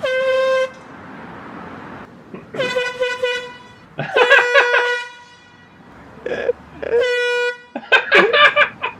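Air horn blasting in several short, loud blasts at one steady pitch, with voices near the end.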